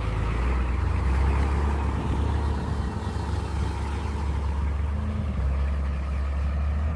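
A steady low engine rumble, like a vehicle engine idling.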